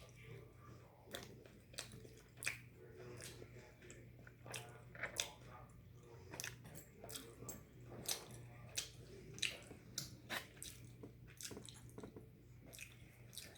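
A person chewing and biting food close to the microphone, with irregular sharp crunches and mouth clicks over a steady low hum.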